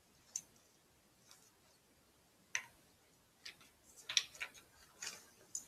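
Scattered small clicks and taps of a clip-on microphone being slid onto a camcorder's top mount, with a quick run of several clicks around four seconds in.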